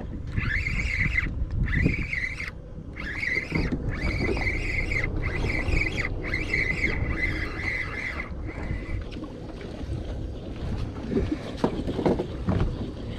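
Boat at sea with a steady low rumble and wind on the microphone. A high-pitched tone sounds in pulses about a second apart and stops about eight seconds in.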